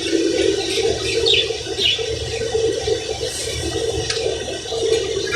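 Water rushing steadily, with a constant hum beneath it.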